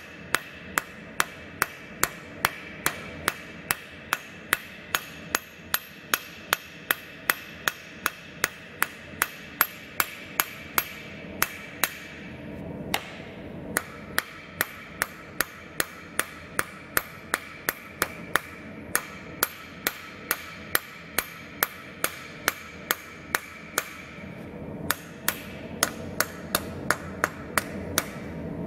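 Hand hammer striking a red-hot steel knife blank on a steel anvil, forging the blade edge: steady blows a little over two a second, each with a short metallic ring. The hammering stops briefly about halfway through and again for a moment near the end.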